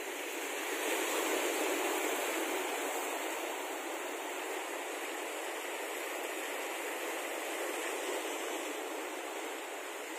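Sea surf, a steady rushing wash of waves that swells slightly about a second in.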